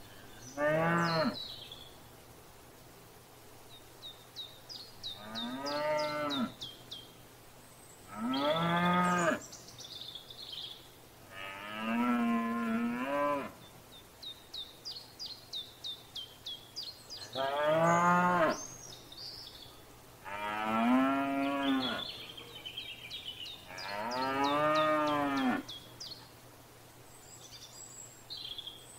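Cattle mooing, about seven long moos one after another, each rising and then falling in pitch. Between the moos come rapid series of high, short chirps.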